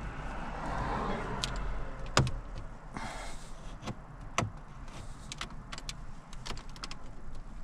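Plastic dashboard trim being pried loose with a trim tool: scraping and rustling with a scatter of sharp plastic clicks and snaps as the panel's clips are worked.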